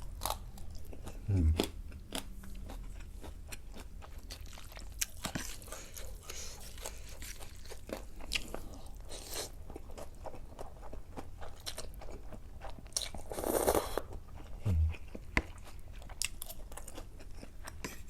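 Close-miked mukbang eating: chewing and crunching of food with many small wet clicks, and a louder rushing burst about thirteen seconds in.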